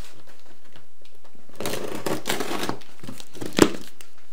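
Packing tape on a cardboard box being slit open with a blade: a stretch of tearing and crinkling tape and card, then a single sharp knock near the end.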